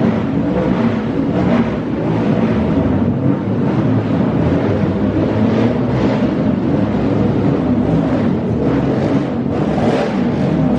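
Motorcycle engine running steadily at a fairly constant speed.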